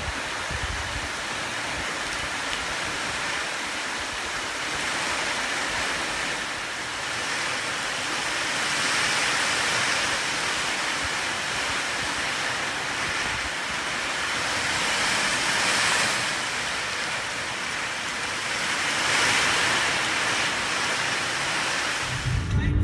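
Heavy downpour of rain on a street and rooftops, a steady hiss that swells louder a few times as gusty wind drives it.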